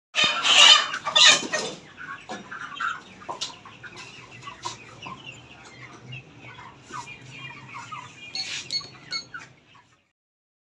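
Broiler chickens squawking loudly twice as they are caught and handled, then a shed full of chickens clucking and calling, with another loud burst of squawking near the end.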